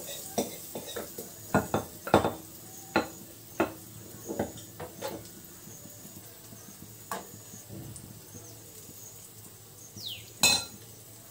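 A spoon knocks and clinks against a non-stick kadai as batter is ladled into hot oil. There are about a dozen sharp knocks in the first five seconds, one more later and a louder one near the end, over the faint sizzle of malpua frying.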